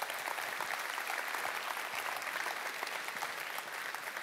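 Large audience applauding, many hands clapping at a steady level.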